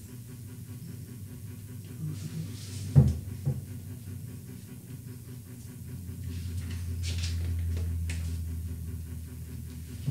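A sharp knock about three seconds in and a smaller one just after, over a steady low hum; a low rumble swells up in the second half and fades again.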